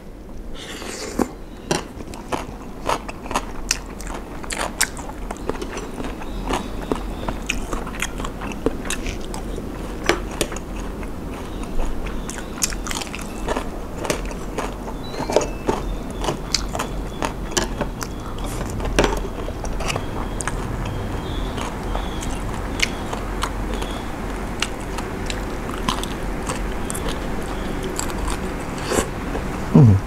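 Close-miked chewing of a mouthful of spicy Thai papaya salad with rice vermicelli noodles: wet chewing and biting with many short sharp clicks throughout.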